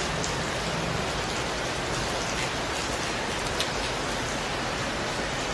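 Heavy rain falling steadily, an even, continuous hiss of rain.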